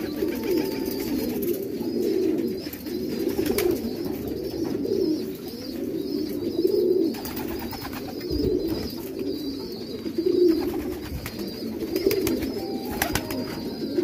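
A flock of domestic fancy pigeons cooing, many low coos overlapping and swelling one after another about once a second, with a few sharp clicks among them.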